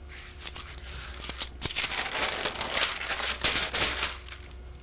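Parchment paper rustling and crinkling as it is lifted and folded over to flip a round of pie dough, with hands brushing across the floured dough. A run of quick papery rustles with a few sharp clicks, busiest from about a second and a half in.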